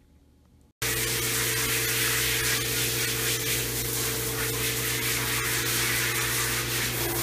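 Water spraying steadily from a shower sprayer over a dog in a grooming tub, a loud even hiss with a steady hum underneath. It starts suddenly about a second in, after near silence.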